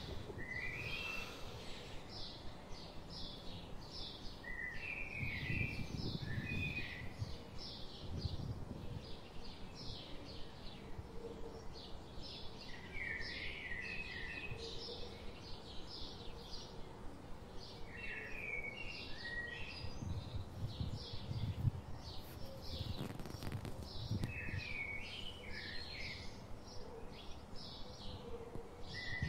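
Small birds chirping: a run of short high chirps, about two or three a second, with a lower twittering phrase every five or six seconds. A low wind rumble comes and goes underneath.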